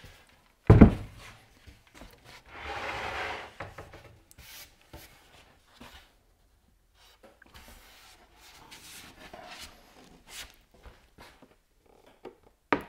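The MFT/3 table's old perforated MDF top being lifted off and handled: one hard wooden thump about a second in, a sliding rub a couple of seconds later, then scattered light knocks and scrapes.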